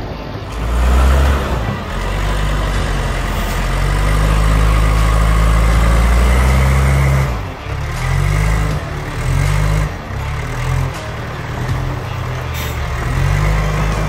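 Compact tractor-loader-backhoe's diesel engine working under load as the front loader pushes into and lifts a manure pile, its engine speed rising and falling several times in the second half.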